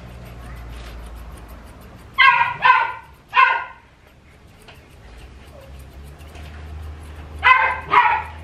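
Dog barking: three sharp barks about two seconds in, then two more near the end.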